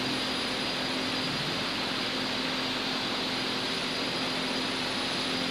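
Steady hiss with a faint low hum, unchanging and without any distinct events.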